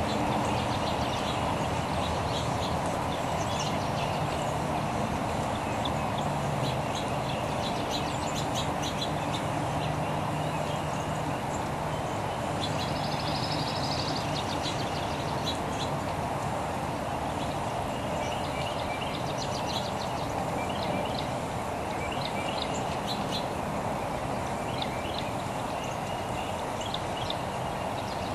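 Birds calling: clusters of short, high chips throughout and a brief trill about 13 seconds in, over a steady rushing background noise.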